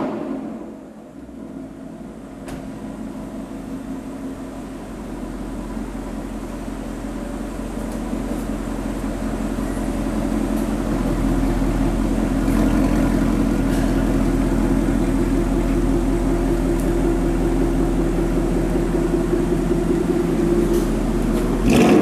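2018 Ford Mustang GT's 5.0 V8 through a Corsa Xtreme cat-back exhaust running at steady low revs, a deep even rumble without revving. It grows gradually louder over the first dozen seconds, then holds.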